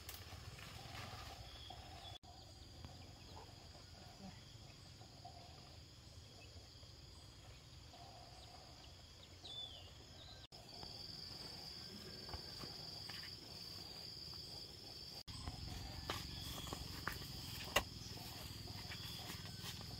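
Insects droning steadily at a high pitch, louder in the second half, with a few short chirps and scattered light clicks and knocks near the end.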